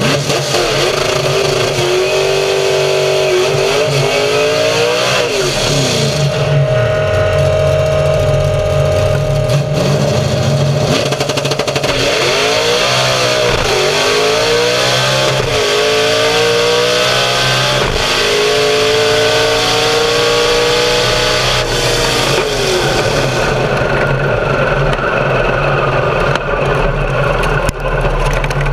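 Nitrous drag car's engine running loud, its pitch rising and falling back several times as it revs.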